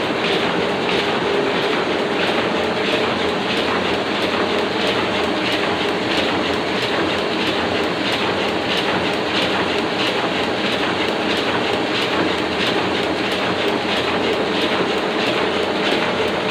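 Oliver printing press running steadily, its mechanism giving a continuous rhythmic clatter.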